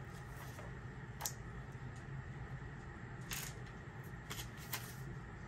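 Paper banknotes and the pages of a ring-binder budget planner being handled: a few brief paper rustles over a faint low room hum.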